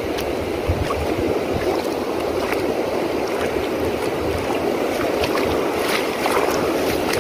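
Steady wash of shallow seawater at the shore, with scattered low bumps on the microphone.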